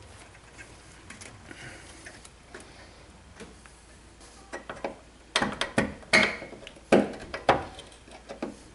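Sharp metallic clicks and knocks from a steel brake-hose retaining clip being worked onto its bracket with a hand tool. There are faint clicks at first, then a run of about eight loud ones over the last three seconds.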